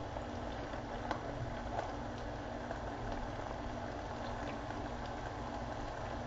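Chopped onions frying in melted butter: a steady sizzle with faint crackles, under a low steady hum. A few soft scrapes and taps come from a spoon scooping avocado flesh from its skin.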